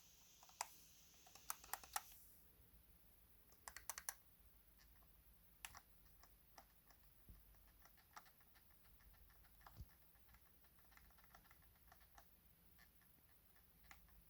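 Faint creaking clicks of a trigger being worked: a few sharp clicks in quick clusters over the first four seconds, then scattered softer ticks.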